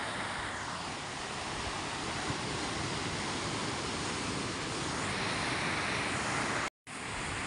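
Wind buffeting the microphone over the rush of waves and surf, a steady noise with no clear engine note. The sound cuts out for an instant near the end.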